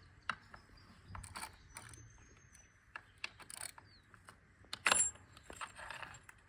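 Irregular metallic clicks and clinks from a 12 mm socket and the steering damper's parts as the damper is unbolted from under the steerer, with a louder clatter about five seconds in.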